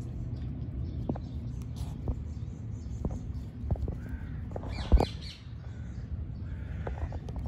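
Harsh animal calls, once about four seconds in and again more faintly near the end, with a few soft knocks and one louder thump, over a low steady rumble.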